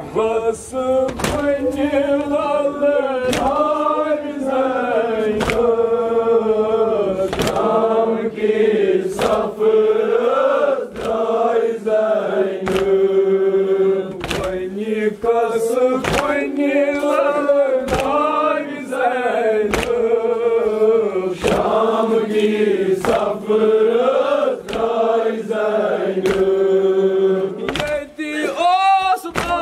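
Group of men chanting a mournful noha (lament for Zainab) in unison. Sharp strikes fall about once a second in time with the chant, fitting hands beating on chests in matam.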